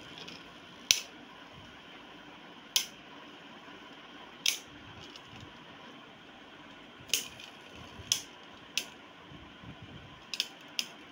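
Two spinning Beyblade Burst tops, Victory Valtryek and Storm Spriggan, clacking sharply as they knock into each other in a plastic-lined cardboard box stadium, about eight irregular hits over a faint steady whirr.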